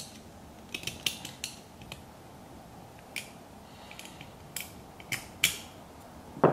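Irregular metallic clicks and clinks from the springs and parts of a Lokka locker being fitted into a differential carrier by hand, with a heavier metal clunk near the end.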